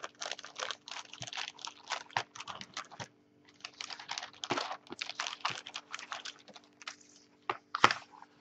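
Clear plastic bag crinkling and crackling as it is pulled open and handled, with a short pause about three seconds in, and paper manuals rustling near the end.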